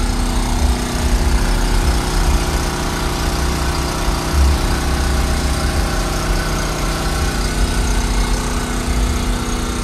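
Portable gasoline generator running steadily, a constant small-engine drone with a deep rumble underneath.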